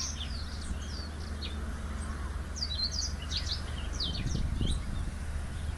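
Small birds chirping in many short, high notes scattered throughout, over a steady low rumble of outdoor background noise.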